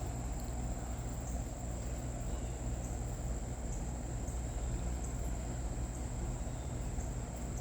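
Steady outdoor ambience: a continuous high-pitched insect drone over a low steady hum, with a few faint ticks.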